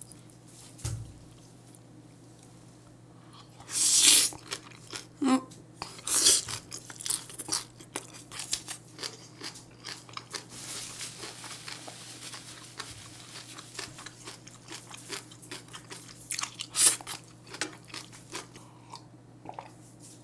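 A person chewing and crunching mouthfuls of food close to the microphone, with many short wet bites and chews. A few louder sharp crunches or clatters come about four, six and seventeen seconds in.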